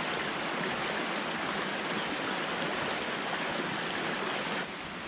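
Steady rush of flowing water. About four and a half seconds in it cuts to a quieter, even hiss.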